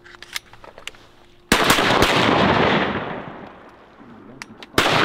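Shotgun blasts: one about a second and a half in, a second shot half a second later, and a third near the end. Each trails off in a long rolling echo.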